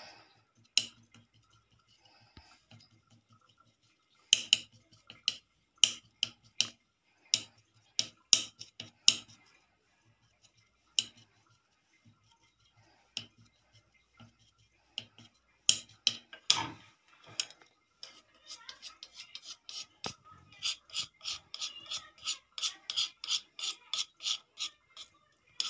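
A knife cutting rows of slits through thin, oiled parotta dough, its blade striking and scraping the board beneath, to shape the parotta. Scattered sharp strokes give way over the last several seconds to a fast run of about four a second.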